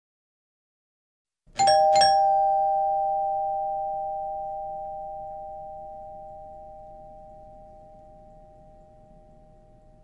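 Doorbell chime ringing ding-dong: two strikes about half a second apart, starting about a second and a half in. Their two tones ring on and fade slowly.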